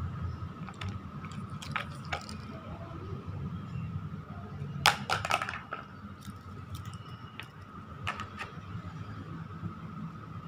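A light plastic plate clattering and tapping on stones, in a few sharp clicks. The loudest is a quick cluster of clacks about five seconds in. A steady low hum runs underneath.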